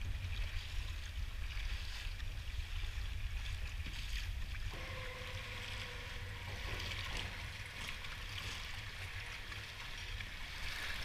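Choppy open-bay water slapping and lapping against a kayak's hull, with a steady low rumble of wind on the microphone.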